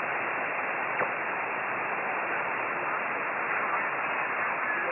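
Steady static hiss from a shortwave receiver in upper-sideband mode on the 10-metre band, with no station audible over it.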